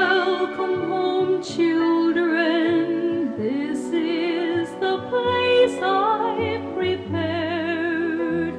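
Gospel song with orchestral accompaniment: sustained strings under a woman's high, operatic-style singing voice with a wide vibrato.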